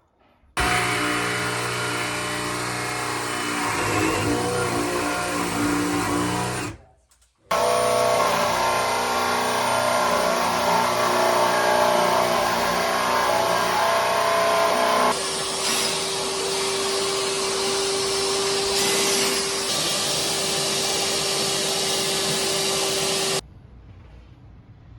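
A small electric motor runs steadily with a whine in three long stretches, each starting and stopping abruptly, with a brief dip in pitch about four seconds in.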